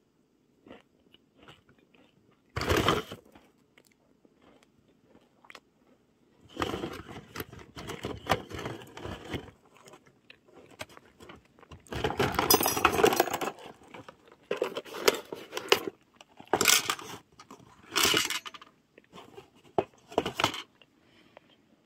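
Household objects handled and set down in several separate bursts of clatter and rustle: a plastic mesh basket, a glass bottle and a food container knocking and scraping together.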